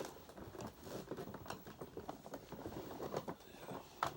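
Irregular light clicks and taps of plastic vacuum cleaner parts being handled, with a sharper click near the end.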